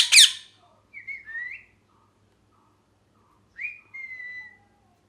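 Ringneck parrot calling: one loud harsh screech at the start, then shorter whistled calls about a second in and again near four seconds, the last a held whistle that falls slightly in pitch.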